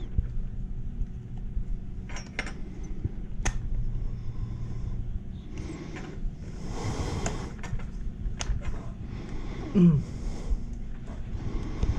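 Light clicks, knocks and rustling as metal carburetor parts from a Honda Magna 750 carb bank are handled and fitted together by hand, over a low steady hum.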